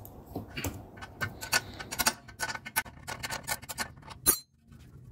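A steel combination wrench clicking and clinking against a car's tie rod end nut as it is turned in short strokes, a few sharp metallic clicks a second, with the loudest clink near the end.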